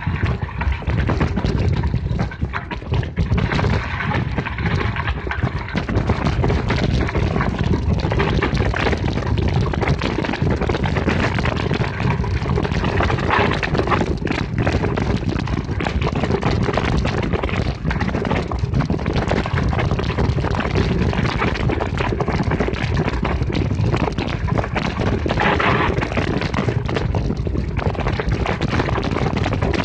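Constant rattling, knocking and wind rush on a mountain bike's camera while it rides over a rough, stony dirt trail, jolts coming through as a dense stream of small knocks.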